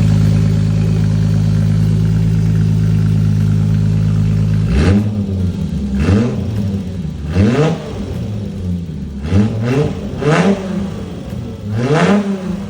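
Alfa Romeo GTV6's V6 engine and exhaust idling steadily, then revved about six times. Each blip of the throttle rises sharply and falls back toward idle.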